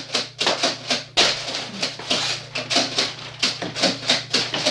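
Foam-dart toy blasters firing in quick succession: rapid sharp clicks and snaps, several a second, over a steady low hum.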